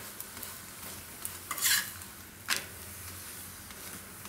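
Oiled garlic thepla sizzling softly and steadily on a hot tawa griddle. A metal spatula scrapes across the flatbread and griddle about a second and a half in, then knocks against it once more a moment later.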